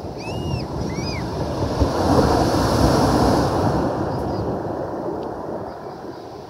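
Sea waves breaking and washing over a shingle beach of pebbles. The surf swells about two seconds in and fades toward the end.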